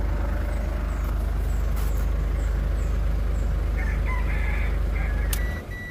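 Ford Ranger's common-rail diesel engine idling steadily, then switched off near the end, the hum dying away with a click and a short beep. A few short high chirps sound over it about four seconds in.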